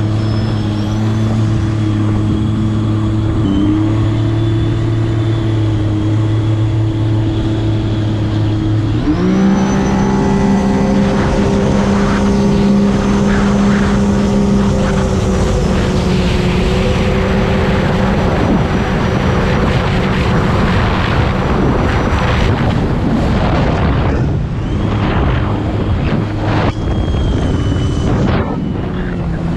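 Stock jet ski engine running steadily at a low-speed roll, then about nine seconds in the throttle is punched and the engine jumps sharply in pitch to full throttle. It runs hard under heavy wind and spray noise, then the revs waver and drop back near the end.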